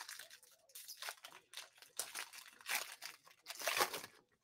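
Foil trading-card pack wrapper crinkling in irregular bursts as it is torn open and handled, loudest near the end.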